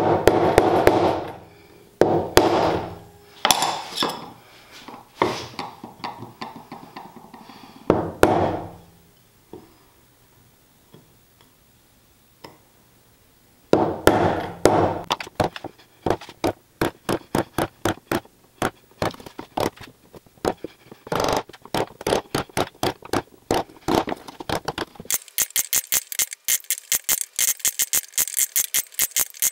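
Mallet striking a chisel to chop a mortise in hard wenge: a few spaced heavy knocks, then from about 14 seconds in a fast run of sharp taps, several a second, which sound thinner and brighter in the last few seconds.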